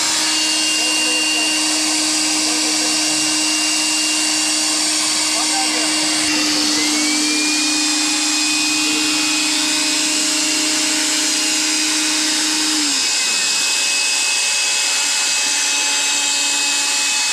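Handheld corded electric air pump running steadily to inflate an inflatable rubber boat's air tube. The motor whine rises and settles about six seconds in, and its low hum drops slightly in pitch near the end.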